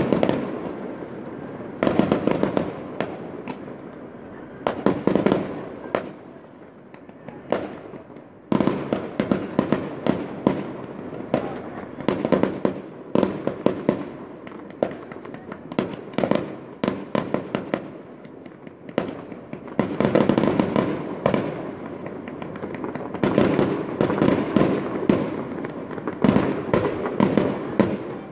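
Fireworks display: a steady run of bangs and crackles in quick flurries, with a short lull about a quarter of the way in.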